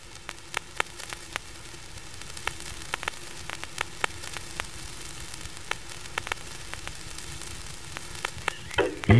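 Crackling static: a steady hiss with scattered sharp clicks and a faint steady hum. A sliding tone begins just before the end.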